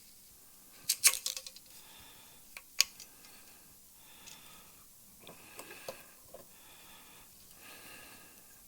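Small hard objects being handled at close range: a short clattering rattle of clicks about a second in, a single sharp click near three seconds, and a few lighter clicks around six seconds, as fishing-pole tackle is worked with the hands.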